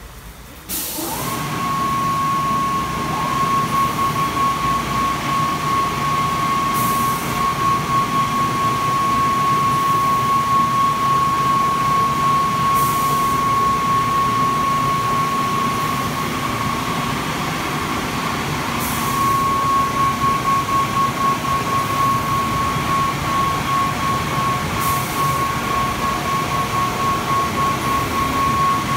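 Kärcher CBC rollover car wash gantry running its brush wash: about a second in the motors start with a whine that rises to a steady high pitch, over a running mechanical rumble. A short hiss comes about every six seconds, and the sound pulses in loudness in places.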